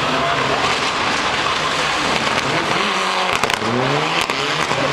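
Mitsubishi Lancer Evo rally car's turbocharged four-cylinder engine running hard under load, with a sharp rise in revs a little before four seconds in. A few sharp cracks come just before the rev rise and again just after it.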